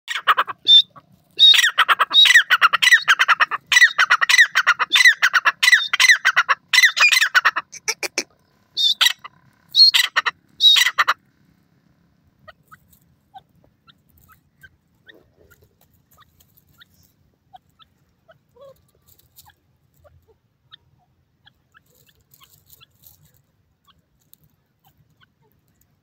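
Grey francolin calling: a fast, rhythmic series of loud, harsh, repeated notes for about eight seconds, then a few more calls around ten seconds in. After that come only faint scattered ticks and rustles as it pecks among dry grass.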